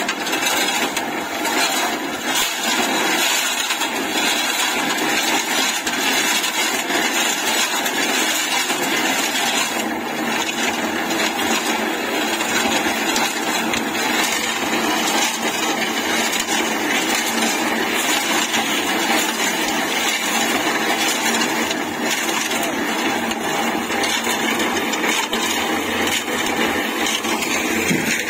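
Half-bag tilting-drum concrete mixer running steadily on its 2 HP single-phase electric motor, the drum turning.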